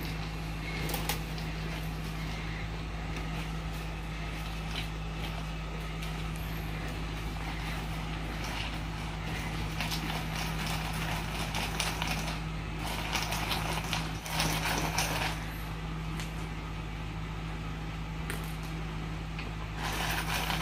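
Ice cubes clicking and knocking against a tall glass as a straw stirs whipped coffee into iced milk, busier and louder in stretches about two-thirds of the way through and near the end. A steady low hum runs underneath.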